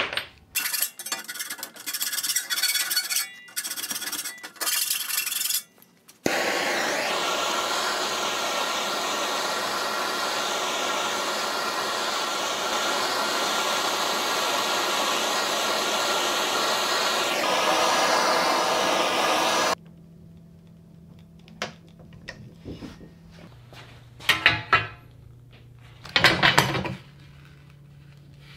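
Irregular rasping strokes of a hand tool on aluminum angle, then a handheld gas torch hissing steadily for about thirteen seconds as it heats the aluminum angle for bending, cutting off suddenly. After it, a low hum with a few brief scraping sounds as the warmed angle is worked in the vise.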